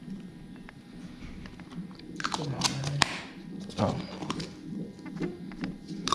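Scattered clicks and crunches of tortilla chips and plastic takeout containers being handled as nachos are topped, with a short low murmured voice about midway.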